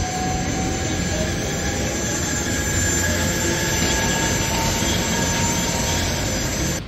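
Electric commuter train running along the tracks: a steady rumbling roar with faint steady whines over it, cutting off suddenly near the end.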